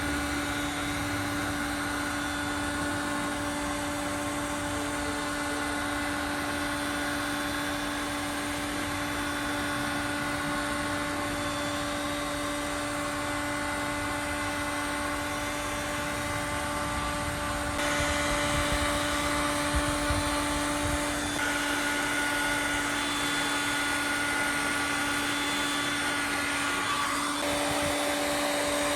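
A small electric motor running steadily with a whining hum and hiss; the sound gets a little louder and its pitch shifts about two-thirds of the way in.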